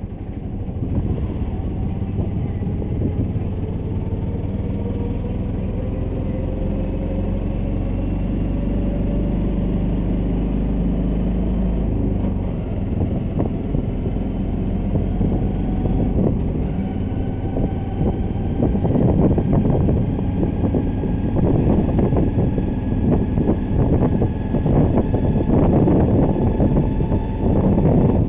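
Engine of the road vehicle carrying the recorder, rising slowly in pitch as it gathers speed, with road and wind noise that grows louder and rougher over the second half.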